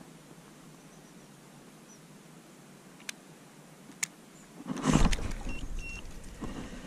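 Quiet surroundings broken by two sharp clicks, then about five seconds in a louder rustling, scraping handling noise starts. Short high beeps from a fish finder come twice through it.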